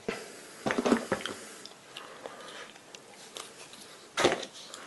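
Hands rummaging in a cardboard box of wooden handle blocks: a short clatter about a second in, light taps and rustling, then a louder clatter near the end as a hand reaches in among the blocks.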